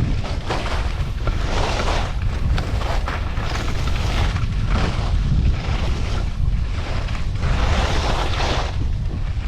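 Skis carving down a snowy slope: a swell of scraping hiss with each turn, repeating every second or two, over a steady low rumble of wind on the microphone.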